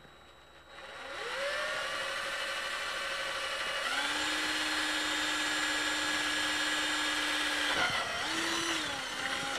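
Black & Decker cordless drill boring a rivet hole through a knife sheath. The motor whines up about a second in, steps to a higher speed about four seconds in, slows near the end, speeds up briefly and stops. The bit is dull and a little bent.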